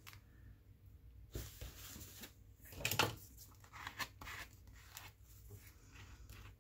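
Quiet rustling and rubbing of paper under the hands as glued paper pieces are pressed down onto a journal page, with a louder crinkle about three seconds in.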